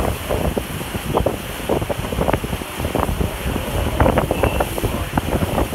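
Gusty wind buffeting the microphone on the deck of a sailing catamaran under way, over the rush of a choppy sea.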